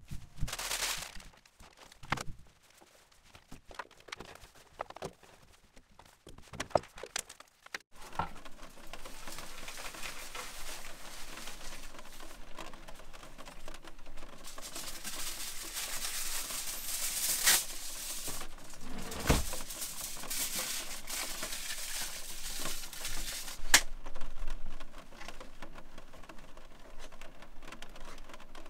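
Small knocks, clicks and crinkling of things being handled in a camper van's kitchen. From about eight seconds in they sit over a steady hiss.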